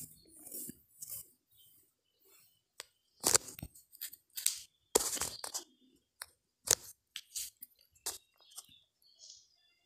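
Kitchen knife cutting through a rolled dough log and striking a wooden board: a series of sharp knocks and short scraping cuts, loudest and most frequent between about three and seven seconds in.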